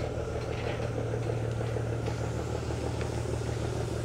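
An engine idling steadily: a constant low hum with no change in speed.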